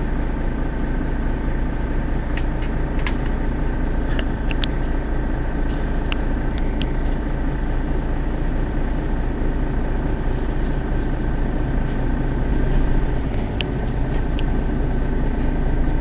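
Mercedes-Benz Citaro city bus's rear-mounted diesel engine idling steadily while the bus stands at a stop, with a steady high whine over the low engine hum.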